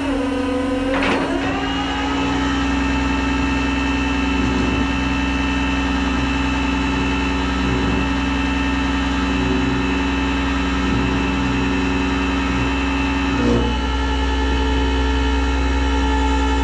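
Tow truck's engine running steadily under way, a steady drone, with the pitch falling in the first couple of seconds and a short change about thirteen and a half seconds in, as with a gear shift.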